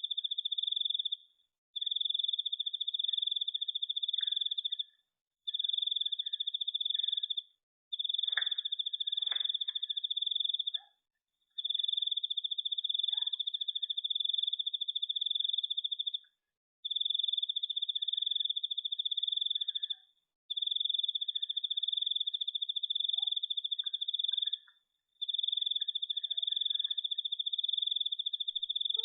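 An insect trilling: a high, fast-pulsed trill in long bouts of about three to five seconds, with short breaks between. A couple of faint clicks come about eight and nine seconds in.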